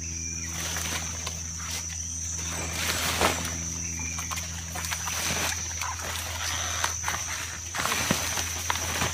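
Scattered knocks and scrapes of digging up taro corms, four or five sharp strikes, over a steady low hum and a steady high whine.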